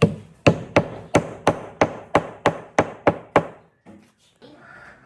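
Hammer blows on wood in a steady run of about three strikes a second, stopping about three and a half seconds in.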